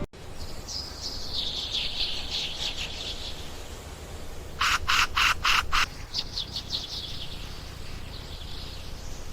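Birds calling: a high, falling chatter of small birds, then about halfway through a burst of five loud, harsh calls in quick succession, followed by more high chattering.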